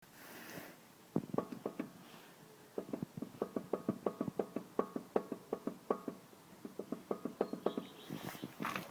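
Lada Vesta brake calipers knocking: a rapid, irregular series of short metallic knocks, several a second, starting about a second in and running until near the end.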